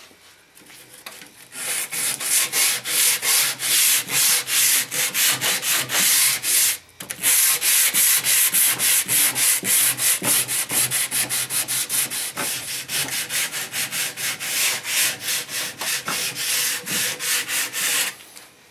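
Rhythmic back-and-forth rubbing on wood, about four strokes a second, starting a second or so in, with a brief pause about seven seconds in.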